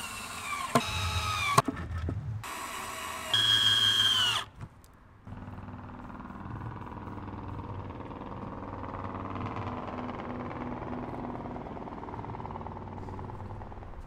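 Cordless drill driving screws into thin plywood: two short runs in the first four seconds or so, the motor's whine dropping in pitch as each screw bites and seats. After that a faint steady hum.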